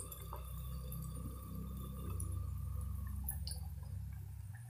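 Potato pakoras deep-frying in hot oil in a steel kadai: faint bubbling and crackling of the oil over a low steady rumble.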